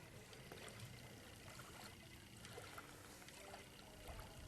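Near silence: faint outdoor background with a few soft scattered ticks.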